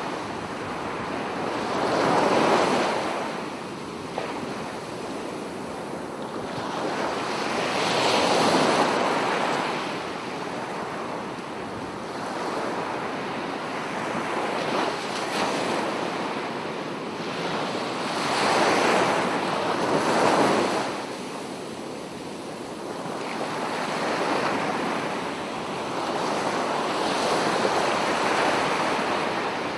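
Ocean waves breaking and washing on a shore, the surf swelling and easing every few seconds.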